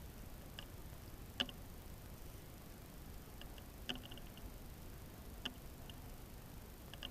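Footballs being kicked on artificial turf: a few short, sharp knocks at irregular intervals, the loudest about a second and a half in, over a faint low background.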